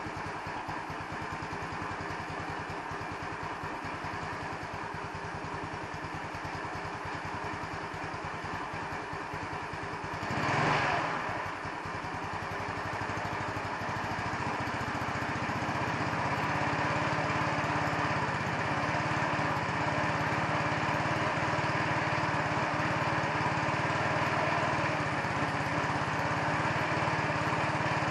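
Single-cylinder engine of a 150cc Chinese scooter idling soon after a cold start, an idle the owner hears as hesitating and suspects is set wrong. About ten seconds in the engine speed briefly swells, and from about fifteen seconds it runs a little louder and steadier.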